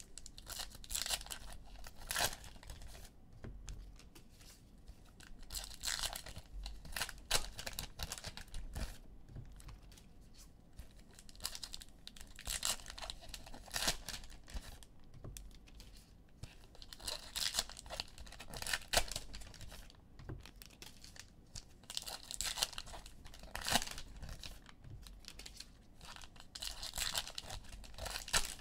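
Wrappers of Topps baseball card packs being torn open and crinkled in the hands, one pack after another, in about six bursts of tearing and crackling a few seconds apart.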